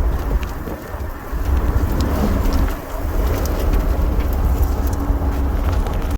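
Heavy low rumble of storm wind buffeting and road noise heard from inside a vehicle, with scattered light ticks on the body.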